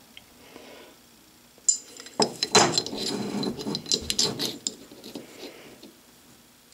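Steel micrometer being handled and repositioned over two steel dowel pins pressed into a steel block: metal clinks, knocks and scraping, some with a short ringing tone. It starts about two seconds in and dies away by about five seconds.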